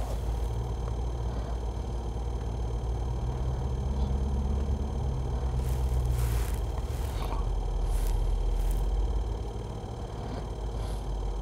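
Low, steady rumble inside a car's cabin, with a faint hum and a few light clicks about six to nine seconds in.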